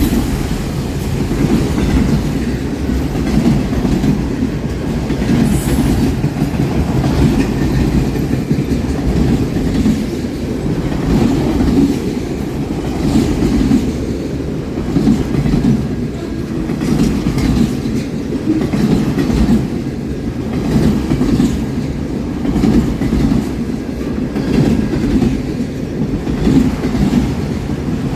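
A train rolling past: a steady, loud rumble of steel wheels on rail, with irregular clicks as the wheels cross rail joints.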